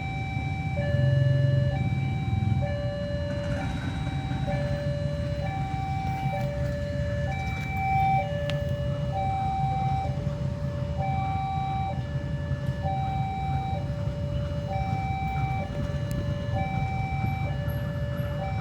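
Railway level-crossing warning alarm sounding an electronic two-tone high-low chime, the tones alternating about once a second, over a low steady rumble.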